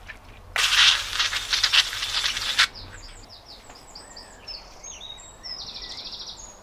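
A loud, even rushing noise lasting about two seconds near the start, then small birds chirping, with a short rapid trill near the end.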